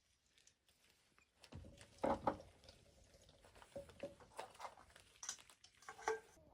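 Faint, scattered clicks and knocks, with a louder pair about two seconds in.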